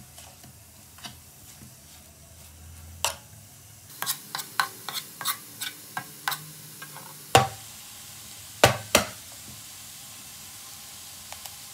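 Wooden spoon stirring crumbled tofu in a nonstick frying pan over a faint sizzle, with a run of quick clicks and scrapes against the pan, then a few louder knocks of the spoon on the pan near the end.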